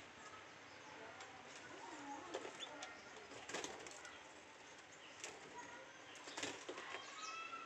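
Canaries mating: faint chirps and calls, wing flutters and a few sharp clicks. The chirps are clearest near the end.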